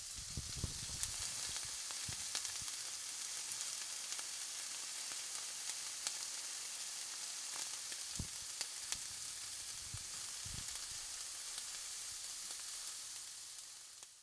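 Steady crackling hiss, strongest in the highs and dotted with scattered clicks and pops, with a few soft low thumps; it fades out at the very end.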